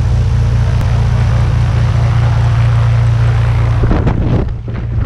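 Single-engine propeller plane's piston engine idling on the ground, a loud steady low hum with propeller wash noise. A few short knocks and rustles come about four seconds in.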